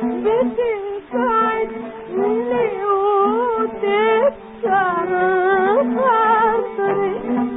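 A woman singing an ornamented Arabic melody in long, gliding melismatic phrases, accompanied by an oud. There are short breaks in the voice about a second in and again about four and a half seconds in.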